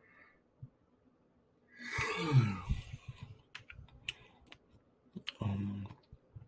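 A man's big yawn, breathy and voiced, falling in pitch as it lets go, followed by a few small clicks and a short low hum.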